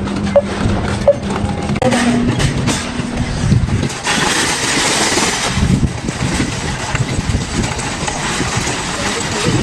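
A motor vehicle's engine running with a steady low rumble and a few light clicks, then a louder rushing noise from about four to six seconds in.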